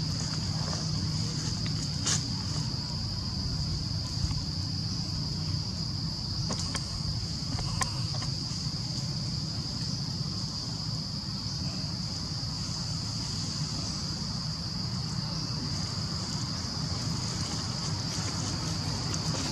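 Steady high-pitched insect chorus, a single unbroken drone, over a low rumble, with a few faint clicks.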